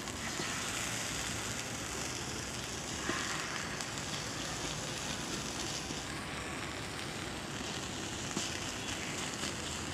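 Prawns frying in butter and garlic on an electric grill plate, a steady sizzle with a couple of small pops.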